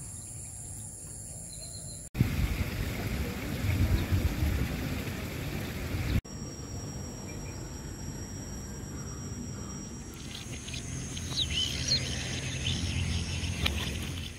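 Outdoor ambience in three spliced pieces: a steady high insect trill, then about four seconds of rougher low rumbling noise, then the insect trill again with short bird chirps from about ten seconds in.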